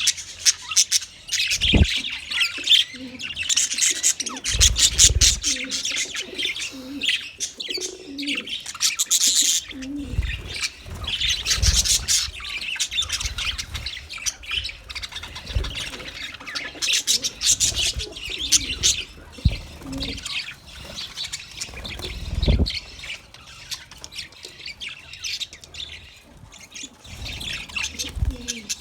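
A flock of small birds chirping and twittering without pause, many calls overlapping, with lower cooing notes mixed in. Several dull low thumps come and go through it.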